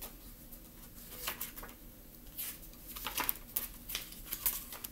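Pages of a paperback picture book being flipped and turned by hand: a series of short, soft paper rustles and flicks.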